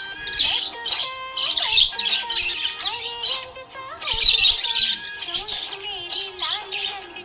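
Budgerigars chirping and squawking in quick, busy bursts, with warbling notes that rise and fall.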